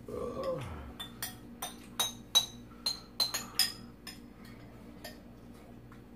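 Metal spoon and chopsticks clinking against ceramic bowls: about ten sharp, ringing clinks in quick succession, then a few fainter clicks.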